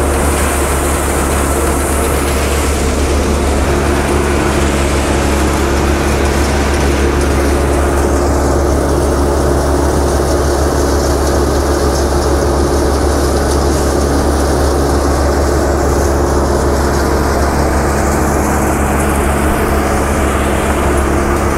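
Tractor-driven peanut thresher and the tractor's diesel engine running steadily under load as peanut plants are fed in, a continuous loud drone with a strong low hum.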